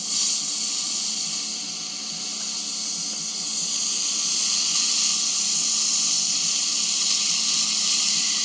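iPlus Waterlase dental laser handpiece firing in non-contact on gum tissue, a steady hiss that starts as it is fired and grows a little louder after a few seconds, cauterising the tissue white.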